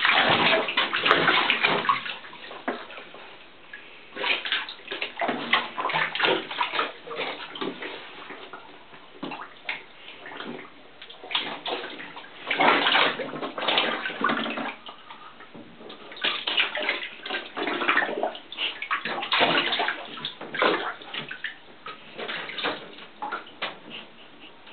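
German shorthaired pointer puppy splashing and sloshing through shallow water in a bathtub as it goes after a training dummy, in irregular bursts with quieter pauses between.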